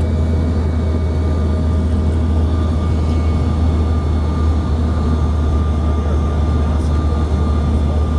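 Steady in-flight cabin noise of a CRJ-700 regional jet: a deep, even rumble of airflow and engines with thin steady whining tones from its rear-mounted GE CF34 turbofans, unchanging throughout.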